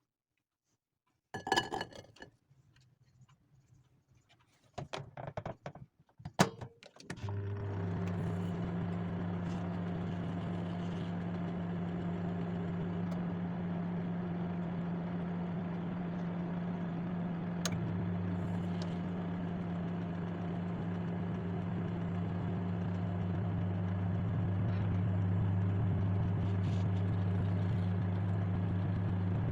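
A few sharp clicks and knocks, like a microwave oven's door and buttons being worked. About seven seconds in, the microwave oven starts and runs with a steady low electrical hum, broken once by a short click.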